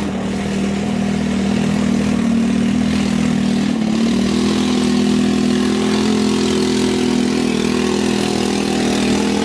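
Quad ATV engine running at a steady, moderate speed, growing somewhat louder over the first few seconds as the quad comes closer.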